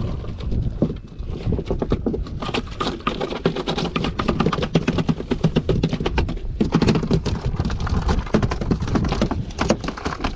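Skipjack tuna beating its tail rapidly against the boat's deck: a fast, uneven run of taps and slaps, with a low rumble underneath.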